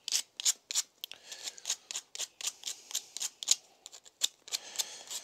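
E-bike disc brake pad rubbed back and forth on sandpaper in quick, even scraping strokes, about three to four a second. The pad face and edges are being sanded down to cure squealing brakes.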